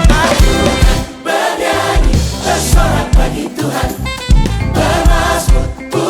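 Gospel worship song: a choir singing in harmony over a full band with a steady kick drum and bass.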